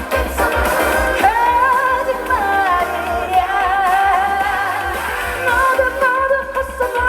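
Amplified trot song: a sustained melodic lead line with vibrato over a steady bass beat.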